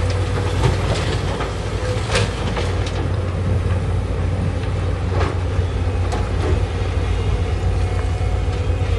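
Heavy construction machine's diesel engine running steadily with a deep hum, with occasional sharp metallic clanks.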